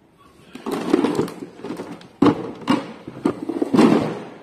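Rummaging for a spare toilet control board: a run of sharp knocks and clatter from things being handled and moved about, about five of them spread over a few seconds.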